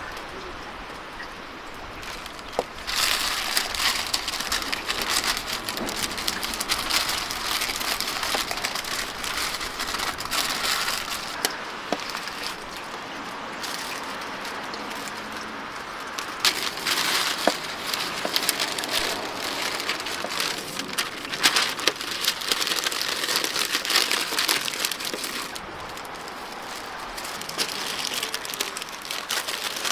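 Stiff brown paper crinkling and rustling as it is wrapped around a whole goat carcass and tied with string. It starts about three seconds in, eases for a few seconds near the middle, and dies down near the end.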